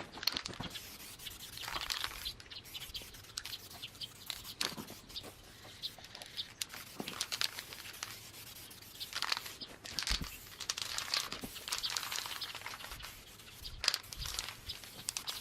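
Paintbrush strokes applying epoxy gloss enamel to an old anvil: irregular, scratchy brushing and rubbing with occasional light clicks.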